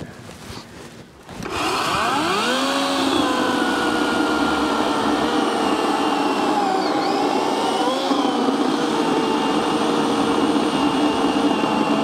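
60V Toro Flex Force battery-electric chainsaw: after about a second and a half its motor spins up with a rising whine. It then runs at a steady, loud pitch while the chain cuts through a log, with a brief wobble in pitch about eight seconds in.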